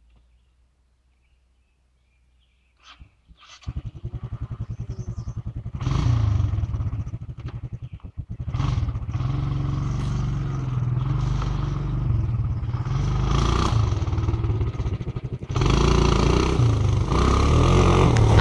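A vehicle engine starts about three and a half seconds in and keeps running, its speed rising and falling, getting louder about six seconds in.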